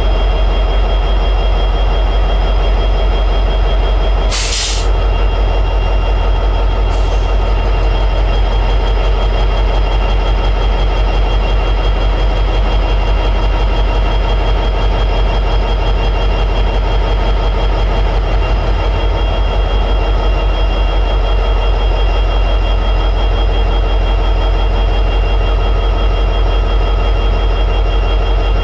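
EMD 710G3B diesel prime mover, a 16-cylinder two-stroke, running steadily in high idle with a steady high whine over its deep running note. A short, sharp hiss of air cuts in about four seconds in, and a fainter one follows a couple of seconds later.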